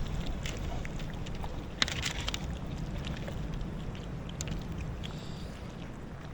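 Steady low rumble of wind on the microphone, with a few faint clicks and ticks.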